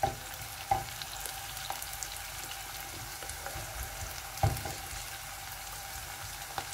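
Sliced onions sizzling in hot oil in a pot, being fried until golden and stirred with a wooden spatula. The spatula knocks against the pot a few times, loudest about four and a half seconds in.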